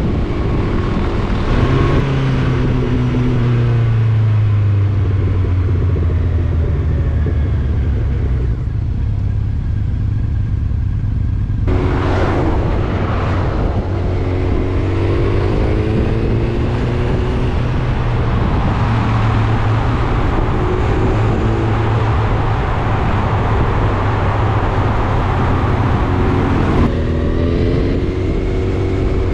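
Motorcycle engine running under way with wind rushing past: the engine rises in pitch through gear changes in the first few seconds, then holds a steady cruise.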